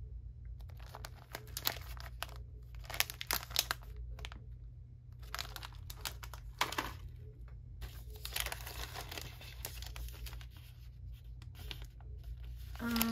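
Plastic snack wrappers crinkling in irregular bursts as packets are picked up, handled and put back among others.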